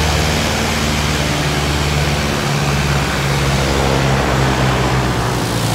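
Light aircraft piston engine, likely a Cessna 172's, running steadily at low power with an even low drone.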